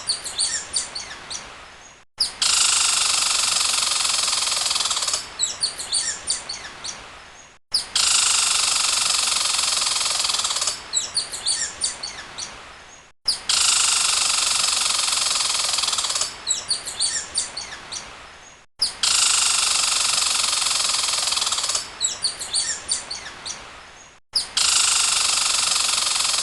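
A looped end-of-video sound clip: about two and a half seconds of steady hiss, then a run of quick bird-like chirps that fade out, with a brief cut to silence before it repeats, about every five and a half seconds.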